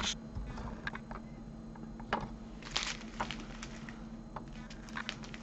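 Small plastic sachets of diamond-painting drills being handled and laid flat on a board: scattered soft crinkles and clicks of the plastic and the resin beads inside, over a faint steady hum.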